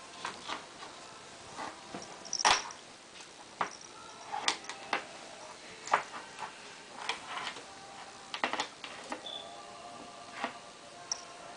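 Irregular light clicks and knocks of a ballpoint pen being batted by a kitten's paws against a wooden desktop, the loudest knock about two and a half seconds in. A few faint, short, high-pitched squeaks come in between.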